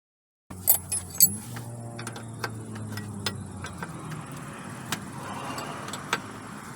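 Light metallic clicks and taps of tools and metal hose fittings being handled, starting about half a second in, with two louder clinks near the start, over a low steady hum.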